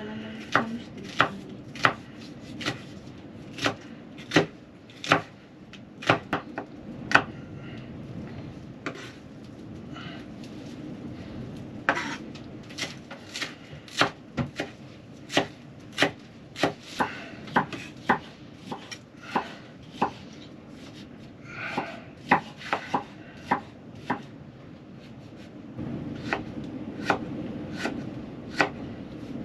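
Kitchen knife chopping vegetables on a wooden cutting board: sharp, irregular strokes, roughly one or two a second, with a quicker run of strokes a little past two-thirds of the way through.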